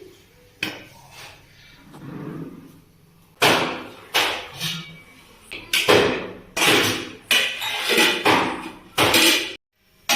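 Kitchen utensils knocking and clinking against cookware: a quick run of about a dozen sharp strikes, each ringing briefly, starting a few seconds in.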